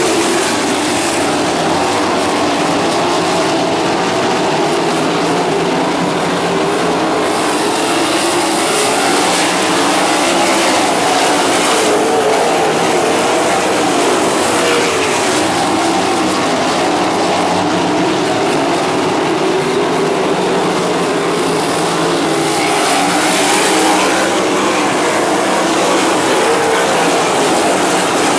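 A pack of non-winged sprint cars racing on a dirt oval, several engines running at once, their pitch rising and falling as the cars go through the turns and down the straights.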